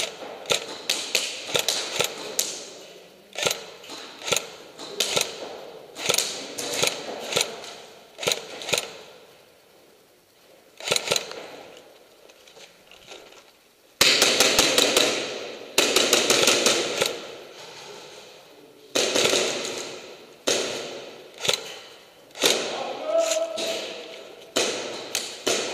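Airsoft guns firing in rapid bursts of sharp cracks, echoing off concrete walls, with the longest and loudest burst about halfway through.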